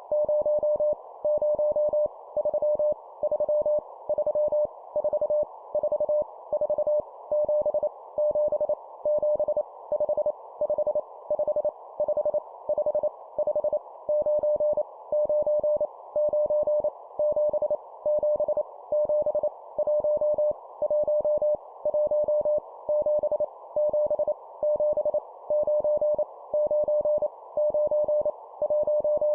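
Morse code at 25 words per minute: a single steady mid-pitched tone keyed rapidly on and off, sending random numbers, each repeated three times. A faint band of hiss around the tone carries on through the short gaps.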